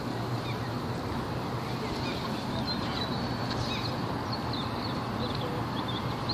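Outdoor ambience at a hilltop viewpoint: a steady rushing noise with a low hum beneath, and short high chirps of small birds scattered through it.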